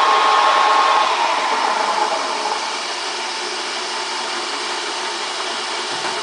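Jarbe F2-CM universal milling machine driving its table on the horizontal power feed in reverse: a steady mechanical whine with a clear tone. It eases down over the first couple of seconds, leaving the machine running with a steady hum.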